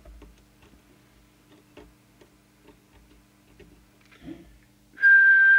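Faint irregular clicks as a trimming tool turns a preset on the CB radio's circuit board, over a low steady hum from the test bench. About five seconds in, a loud, steady single-pitch whistle starts: a whistle into the microphone for the deviation test.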